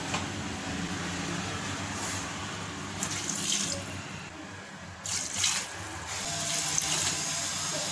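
Water poured from a tumbler into a pressure cooker onto the mushroom and masala mix, splashing and filling, with a short lull about four seconds in before the next pour.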